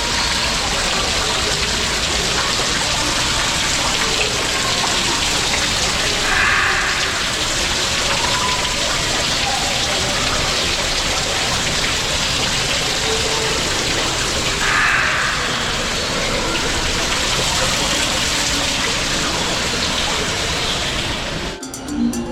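Steady rushing water that sounds like a heavy downpour of rain, even and unbroken, cutting off suddenly near the end.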